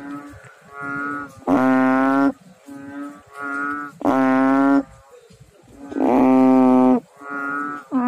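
A large brown frog calling with steady, low, moo-like notes. Each loud call lasts just under a second, with shorter, softer notes in between, about a call every one to two seconds.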